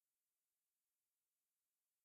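Silence: the sound track is essentially empty, with only a faint digital hiss.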